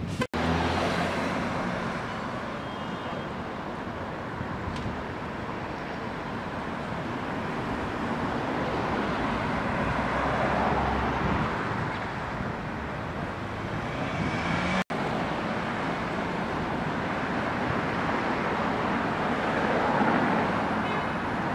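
City street traffic: cars and taxis passing on a wide avenue, a steady road roar that swells and eases as vehicles go by. The sound drops out for an instant twice, near the start and about two-thirds through.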